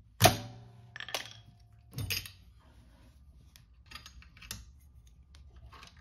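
A screwdriver prying off the spring clips that hold a top-load washer's drain pump to the motor. There is a sharp metallic snap with a brief ring just after the start, two more clicks about a second apart, then lighter clicks and rattles as the pump comes free.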